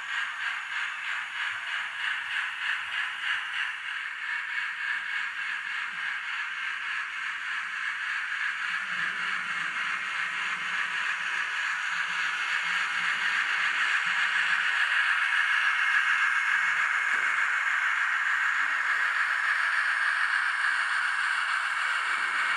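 N-scale model Union Pacific Challenger 4-6-6-4 steam locomotive running along the track, its small motor and wheels whirring with a fast, regular pulsing. The sound grows louder as it comes closer, about halfway through.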